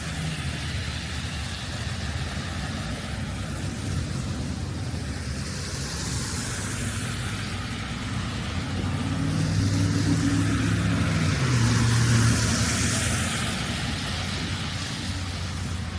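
A motor vehicle passing close over a steady low traffic rumble. Its engine hum and tyre hiss grow to their loudest about ten to twelve seconds in, then fade.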